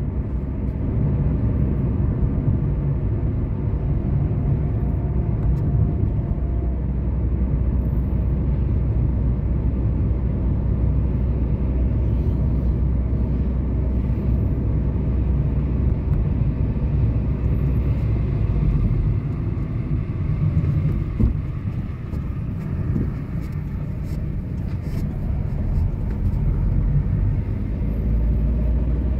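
Steady low rumble of a car's engine and tyres heard from inside the moving car, easing off a little about three quarters of the way through.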